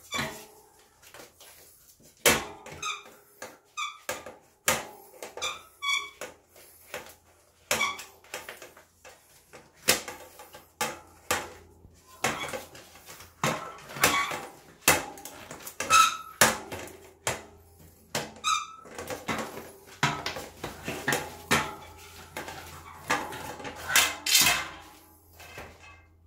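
Rubber bicycle tyre being worked off the wheel rim by hand: the tyre bead squeaks and creaks against the rim in short bursts, with irregular knocks and clicks.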